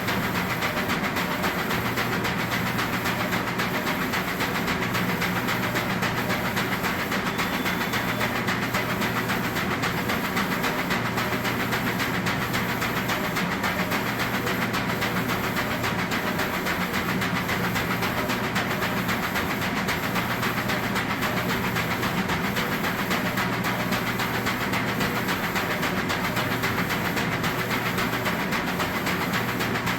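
DTF powder shaker machine running: a rapid, even rattle from the shaking mechanism with fan hiss, and a low hum that cycles on and off every couple of seconds.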